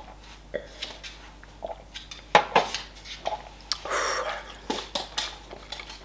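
Sipping from a small drinking glass, then sharp clinks and knocks of the glass and tableware, the loudest about two seconds in. A short breathy hiss comes about four seconds in.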